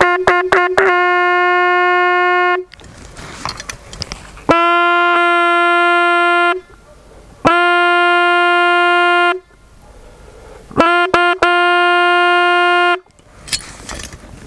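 Hunting horn blown to call back hounds. It sounds four long blasts on one steady note, and the first and last begin with a few short toots.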